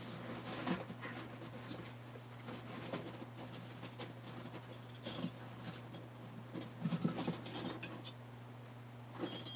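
Scattered clinks and knocks of metal flatware being rummaged through while searching for a knife, over a steady low hum.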